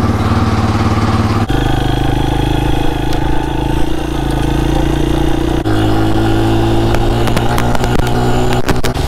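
Small pit bike engine running under way, its note changing abruptly about one and a half and five and a half seconds in. A few sharp clatters near the end.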